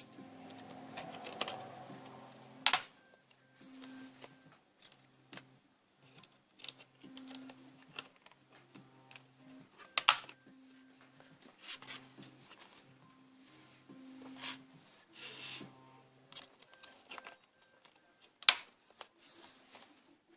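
Hands handling the parts of a Nielsen metal picture frame during assembly: scattered light clicks, taps and rustles, with three sharp clacks much louder than the rest, about three seconds in, ten seconds in and near the end. Soft background music plays under it.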